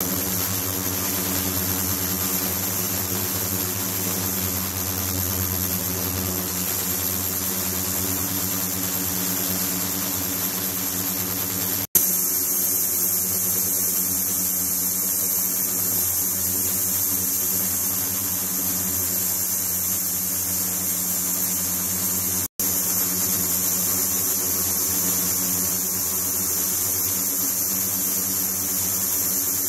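Ultrasonic cleaning tank with its liquid-circulation pump running: a steady hum with a high hiss above it. The sound breaks off for an instant twice, about twelve seconds in and again about ten seconds later.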